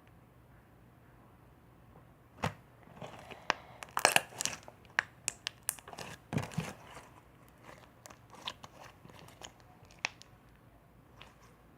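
Slime and its plastic bag being handled by hand: irregular crinkles and sharp clicks after a quiet start, thickest a few seconds in, then thinning out.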